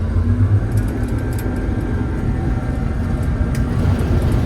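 Combine harvester running, a steady low engine rumble with a faint whine above it.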